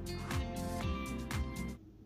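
Background music with a steady beat and held tones, cutting off abruptly near the end.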